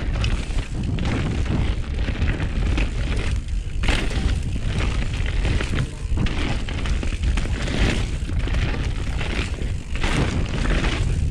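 Mountain bike riding down a dirt trail: a constant low rumble of wind buffeting the bike-mounted or body-mounted camera microphone, with the tyres and bike rattling over the rough ground.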